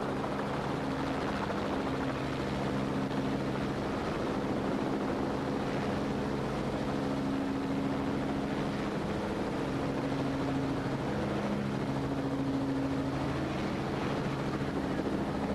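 Helicopter running steadily, a continuous hum of several steady tones over a rushing noise from the rotor and engine.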